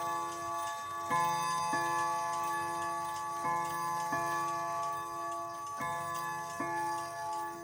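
Repaired mantel clock striking its chime: six ringing notes of different pitch, struck in pairs about two seconds apart, each one ringing on until the next. This shows the striking train working.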